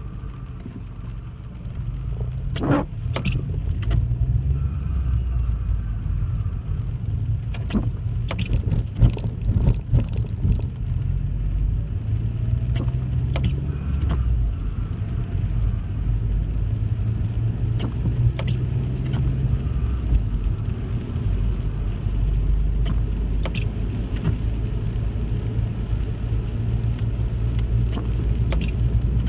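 Car cabin road noise: a steady low rumble of engine and tyres, with scattered short clicks and rattles from something loose inside the car, clustered around three seconds in and again from about eight to ten seconds in.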